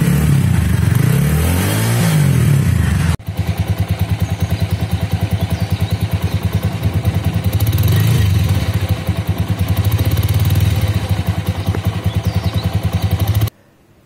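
TVS Apache RTR 200's single-cylinder engine running through its newly fitted replacement exhaust silencer, revved up and down a few times. After a cut it runs at an even, rapid putter with one small rev, and stops abruptly near the end.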